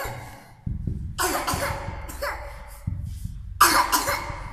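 A person coughing in sudden bursts: once at the start, again about a second in, and a harder cough near the end, over a low rumble.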